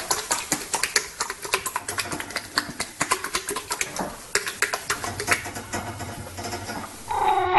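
Rapid, irregular clicking and tapping, several sharp clicks a second. About seven seconds in it cuts to a dog starting a loud, drawn-out, wavering vocal sound.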